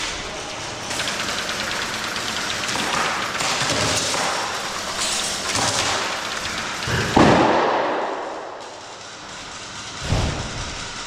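Airsoft guns firing in rapid bursts of popping shots, with a louder bang about seven seconds in and another about three seconds later.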